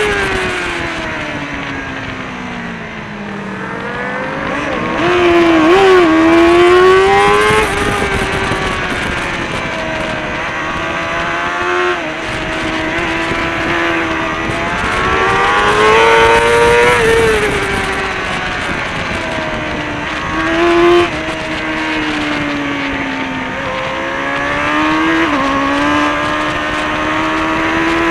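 Kawasaki ZXR400 race bike's 400 cc inline-four engine with a Pipewerx exhaust, heard from a camera on the bike at racing speed: its pitch falls off under braking, then climbs hard with quick steps at gear changes, over and over through the corners. Wind noise runs under it.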